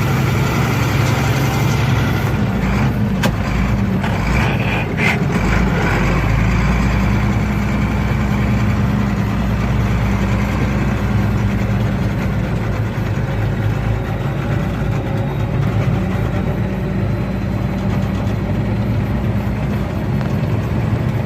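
Heavy plow and sanding truck's engine running steadily at low speed, heard from inside the cab, with a few light clicks about three to five seconds in.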